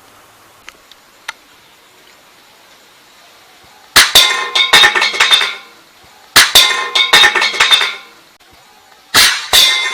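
Three bursts of rapid clattering and clinking, hard small objects knocking together with a short ring, each about a second and a half long, the first about four seconds in. Two faint clicks come before them.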